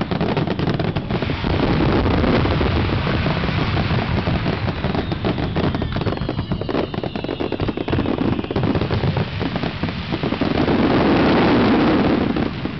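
Fireworks display: a dense barrage of shells bursting and crackling in rapid succession, swelling into a louder rumble of booms near the end.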